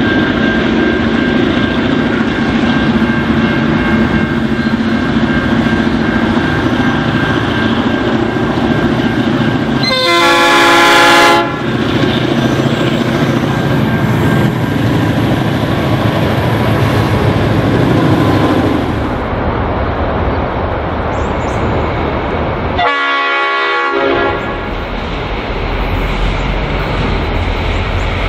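G-class diesel-electric locomotive running under load as it hauls a long freight train past, with steady engine and wheel noise. Its multi-note air horn sounds twice: a blast of about a second and a half roughly ten seconds in, and a shorter one about 23 seconds in.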